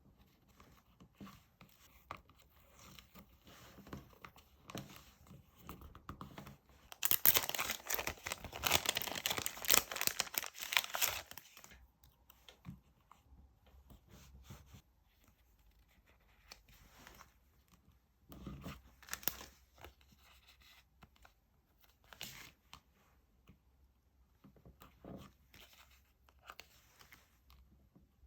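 Paper and sticker sheets being handled for journal decorating: soft rustles and light taps, with a loud stretch of crinkling, tearing paper noise lasting about five seconds, about a quarter of the way in.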